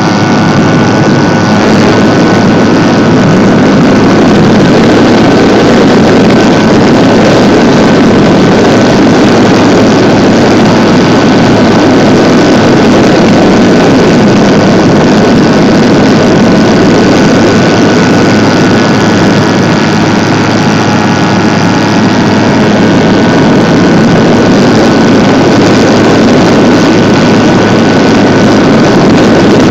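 HeadsUpRC 480 Plus brushless electric motor and propeller running at steady cruise power, heard from a camera carried on the RC plane: a loud, even rushing drone with a steady high whine, mixed with wind over the microphone.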